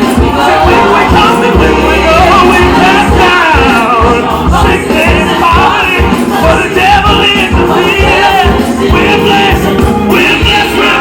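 Live gospel music: a choir singing with a full band and a steady beat.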